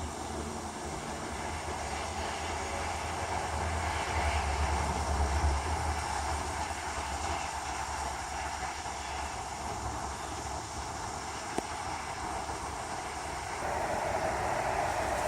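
Steady rush of distant highway traffic, with a low, uneven wind rumble on the microphone.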